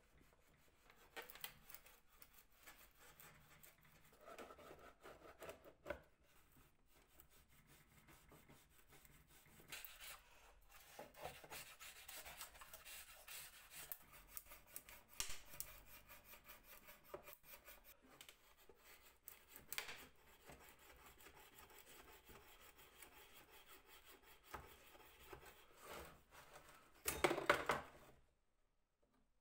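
Faint, irregular rubbing and scraping strokes on the mandolin's wood, hand restoration work such as sanding or scraping, with scattered light clicks. A louder burst of scraping comes near the end, then the sound stops abruptly.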